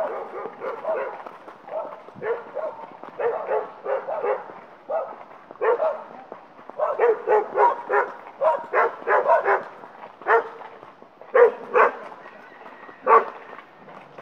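Dogs barking: short, sharp barks, scattered at first and then in quick runs through the middle, ending with a few single loud barks.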